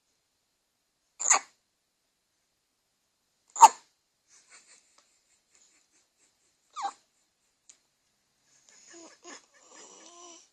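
Three sharp, loud hiccups, a few seconds apart, then fainter soft sounds near the end.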